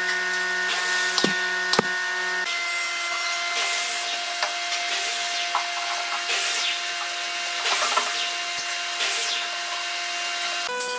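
Handling of a clamped pine frame: a few sharp knocks in the first two seconds, then irregular scraping and rubbing of wood and metal as the bar clamps are loosened and taken off. A steady set of held tones runs underneath and shifts pitch twice.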